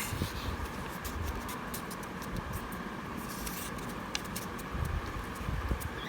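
Square origami paper being handled and creased by hand: scattered small ticks and crinkles, with a short rustle about three and a half seconds in, over a steady low background hum.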